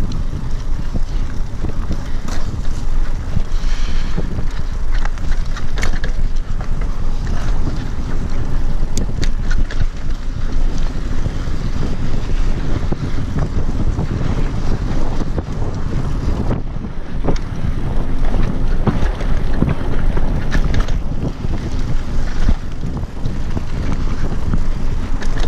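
Wind rushing over the microphone during a mountain bike ride, a loud, steady low rumble, with scattered clicks and rattles from the bike on the trail.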